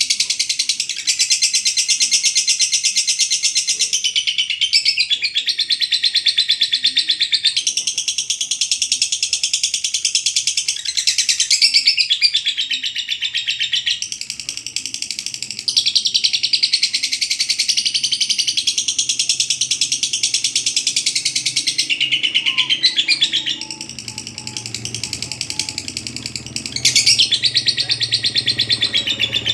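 Lovebird 'ngekek' song: long bouts of rapid, high-pitched chattering trills, each lasting several seconds, broken by short pauses.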